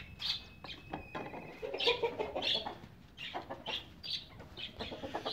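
Golden Misri chickens clucking, a string of short separate calls.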